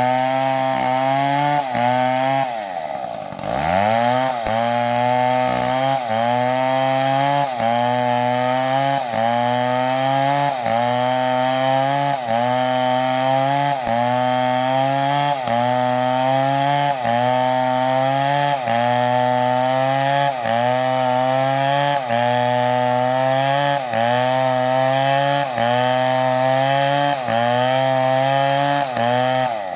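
STIHL MS720 chainsaw cutting under load, its engine pitch sagging and recovering about once a second as the chain bites into the wood. About three seconds in, the revs drop sharply and climb back up, and near the end they fall away.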